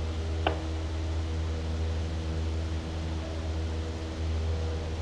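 Light aircraft's piston engine and propeller droning steadily in the cockpit, heard through the headset intercom, with one short click about half a second in.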